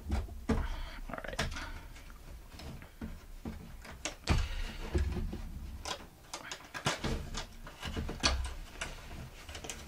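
Hands opening a small cardboard box: the cardboard scrapes and rubs as the end flap is lifted and the inner tray worked loose, with irregular taps and knocks, the sharpest about four seconds in.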